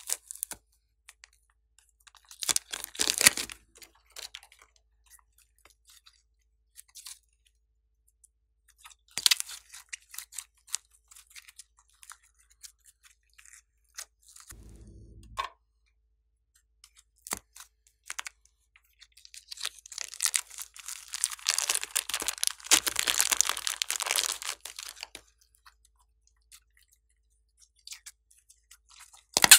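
Glossy slime being pressed, squeezed and stretched by hand, giving sticky crackling and popping in bursts, the longest starting about twenty seconds in, with scattered small clicks between. A short low squelch comes about halfway through.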